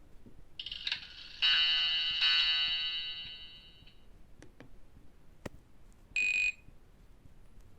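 Nokia E65 phone loudspeaker playing a ringtone: a few bright chime-like notes that start about half a second in and ring out, fading away over a couple of seconds. A few faint clicks follow, then a short bright tone about six seconds in.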